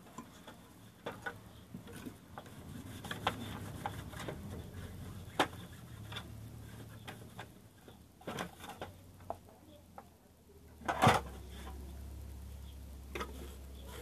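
Light, irregular clicks and knocks of plastic and metal sewing machine parts being handled on a workbench, with one louder knock about eleven seconds in, followed by a low steady hum.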